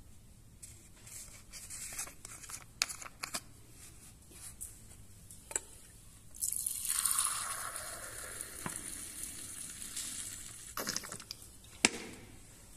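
Plastic cologne bottle handled with clicks and crinkles as its cap comes off, then cologne poured from the bottle into a small glass, a steady splashing hiss for about four seconds. A sharp knock near the end.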